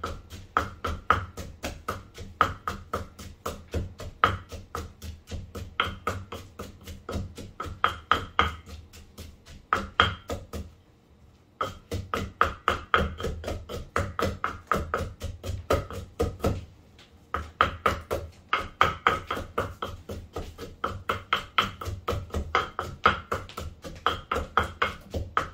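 Knife or cleaver mincing meat on a wooden chopping board: rapid, steady chopping strikes, about four a second, with two short pauses.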